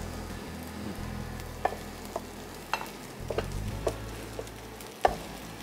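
Battered, deep-fried chicken pieces sizzling in hot vegetable oil in a frying pan while a wooden spatula stirs and tosses them, with scattered knocks and scrapes of the spatula against the pan. The loudest knock comes about five seconds in.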